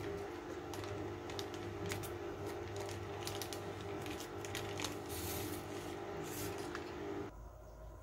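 Baking paper crackling and crinkling in irregular bursts as it is peeled off the bottom of a baked cake, over a steady low hum that cuts off abruptly about seven seconds in.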